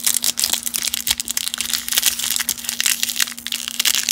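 Plastic cello-pack wrapper of a 1992 Topps baseball card pack crinkling and crackling as it is wrenched open and the stuck stack of cards is worked out of it. A dense run of small crackles that stops suddenly at the end.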